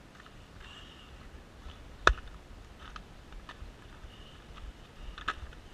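A single sharp smack about two seconds in, the loudest thing here, with a few fainter clicks afterwards over quiet background.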